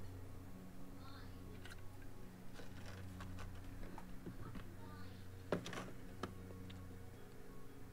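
Control knobs being worked off the front panel of an Audioline 341 CB radio: scattered light clicks and scrapes of plastic, the loudest about five and a half seconds in, over a steady low hum.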